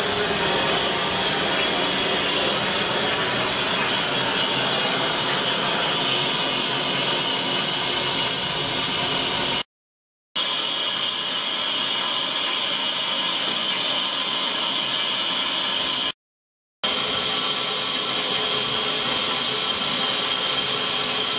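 Steam hissing steadily from a standing GWR Castle class 4-6-0 locomotive, 5043 Earl of Mount Edgcumbe, an even, bright hiss broken twice by brief gaps of silence.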